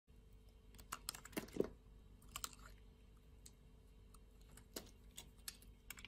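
A blade cutting into a bar of soap: crisp crackling clicks in a few short clusters, the loudest a little over a second in.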